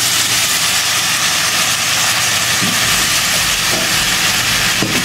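Stock from the boiled goat intestines poured into a pan of masala frying in hot sesame oil, hissing and sizzling steadily as the liquid hits the hot oil.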